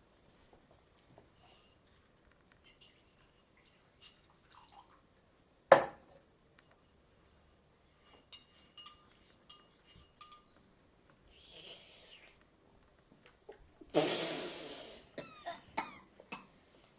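Hand-made foley sound effects: scattered small clicks, one sharp thump, then several light clinks, a short soft hiss, and a loud rush of noise about a second long near the end.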